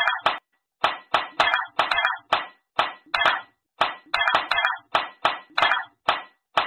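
A rapid run of cartoon fight sound effects: short punches and thwacks, about three or four a second, some coming in quick pairs.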